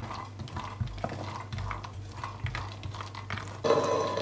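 Toasting cashews stirred with a spatula in a stainless-steel frying pan: light clicks and scrapes of the nuts and spatula on the metal. Near the end a louder rattle as the nuts are tipped out of the pan into a bowl.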